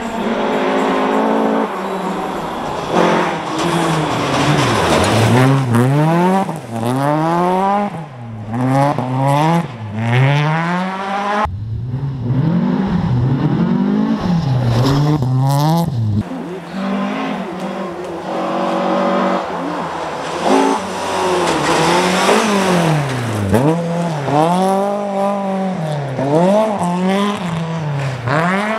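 Rally cars at full throttle on a special stage, one after another. Each engine revs up and drops sharply at every gear change, about every second or two.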